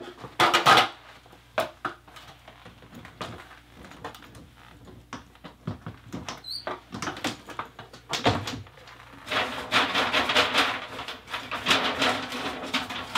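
Scattered knocks, clicks and scraping from a metal step stool and the plastic doors of a reptile enclosure rack being handled. The clatter grows busier for the last few seconds.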